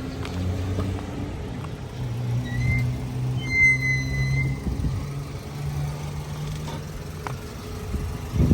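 Nissan Altima on the move, with a steady low drone from the wheels and a brief high-pitched squeal about three seconds in. It is the brake/wheel noise under investigation, which the owner says doesn't sound like brakes only.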